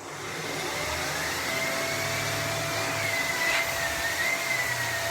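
Vacuum cleaner just switched on, its motor spinning up over the first second and then running steadily with a loud rushing noise and a high, wavering whine.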